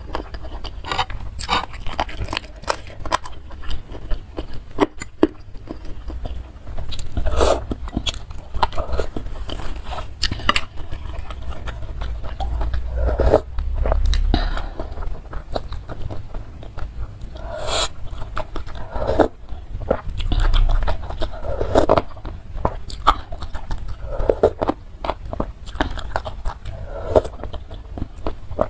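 Close-miked eating sounds: chewing and slurping spicy instant noodles and broth, with a metal spoon and fork scraping and clicking against the bowl.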